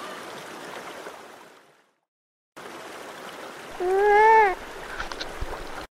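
Beaver whining over trickling, splashing water. The water sound fades out for under a second and comes back, then one loud whine, rising and then falling, sounds about four seconds in, followed by a few faint clicks.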